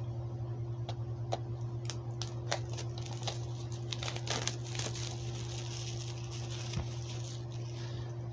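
Plastic shrink wrap being picked at, torn and peeled off a DVD case by hand: scattered sharp crackles and crinkling, densest in the middle stretch, over a steady low hum.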